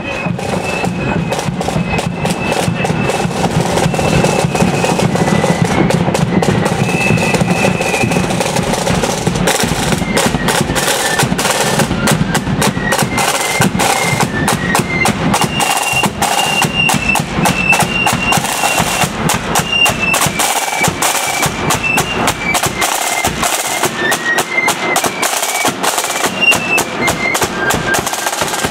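Marching flute band: side drums beating fast and dense under a bass drum, with flutes playing a high melody over them.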